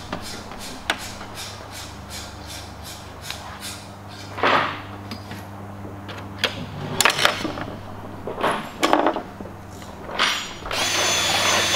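Workshop bench work on an aluminium tube frame: light clicks and clatter of hand tools and parts over a steady low hum, with a few short bursts. Near the end a cordless drill starts and runs steadily with a high whine.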